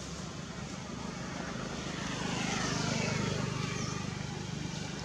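A distant engine drone passing by, swelling to its loudest about three seconds in and then fading.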